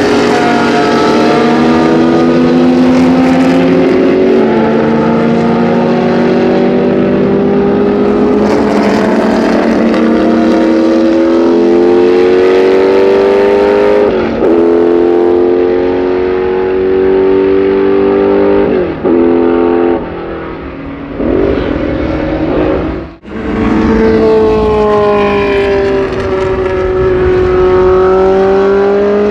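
Historic 1960s–70s endurance racing car engines at full throttle, the note climbing through the gears with a sharp upshift every four to five seconds. After a brief break about two-thirds of the way through, another car's engine note dips and then climbs again as it accelerates.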